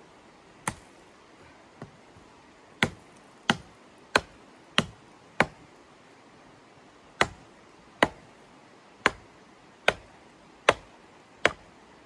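Hatchet chopping into a long branch lying on the ground: a dozen or so sharp wooden chops, a run of five about two-thirds of a second apart, a short pause, then six more at the same pace.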